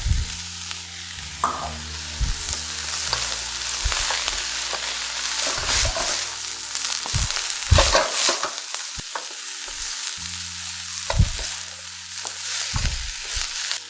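Vegetables stir-frying in a very hot pan, peppers just added, sizzling steadily while a utensil stirs and scrapes them with repeated knocks against the pan, the sharpest about eight seconds in.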